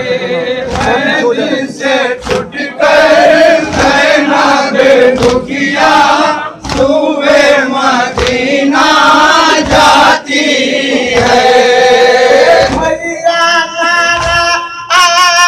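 A group of men chanting a Shia noha (mourning lament) in unison into microphones, with long held notes, and sharp slaps of chest-beating (matam) between the lines.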